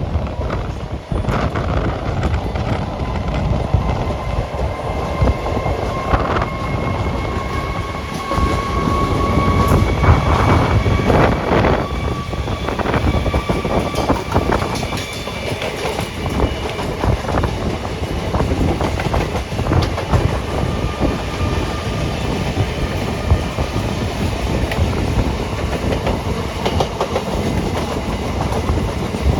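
Passenger trains running on the track, a steady rumble with clickety-clack of wheels over rail joints. A faint high whine holds from about five seconds to about sixteen seconds in.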